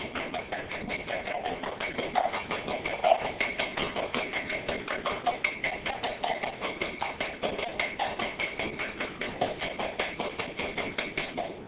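A utensil tapping rapidly against a mixing bowl as eggs are beaten into pecan pie filling, about four to five strokes a second. The beating stops abruptly near the end.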